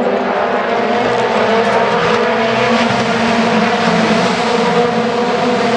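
Several BTCC touring cars' engines running hard together in a steady, layered drone, with several held pitches over tyre and engine noise.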